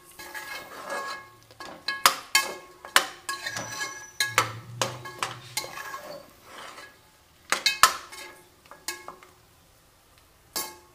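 Metal spoon scraping and knocking against the sides and bottom of an aluminium pressure cooker while stirring thick masala with mutton trotters. The pot rings after the harder knocks. It goes quiet for a couple of seconds before a last knock near the end.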